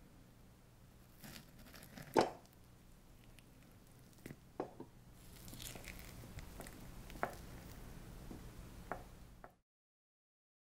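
Metal teaspoon breaking into a soft-baked chocolate fondant in a ceramic dish, with soft squishing as it scoops the molten centre. A sharp clink of the spoon about two seconds in is the loudest sound, and a few lighter clicks follow. The sound cuts off suddenly near the end.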